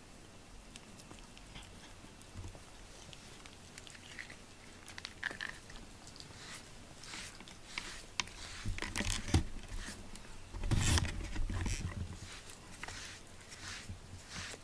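Cats eating from a dish, with small crisp clicks and crunches of chewing and licking that grow busier as it goes on. Around the middle and just after, louder bumps and rustling come as the camera is moved and a hand rubs against the cat's fur.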